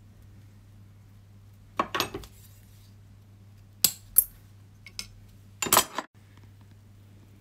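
Metal hand tools clinking and clattering on a jeweller's bench. About four seconds in come two sharp snips close together as hand shears cut thin gold wire, and there is another clatter of tools near the end.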